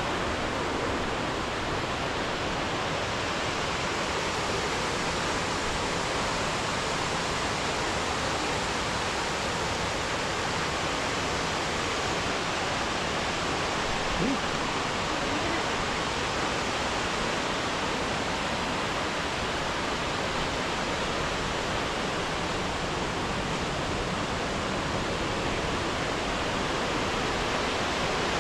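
Waterfall, the water falling over rocks in a steady, even rush.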